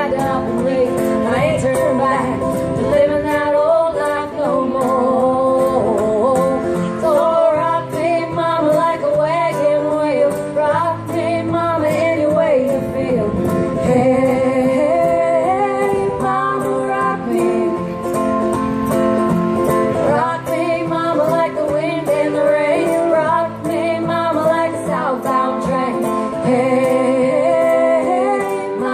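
Live acoustic song: an acoustic guitar strummed in a steady rhythm while women sing.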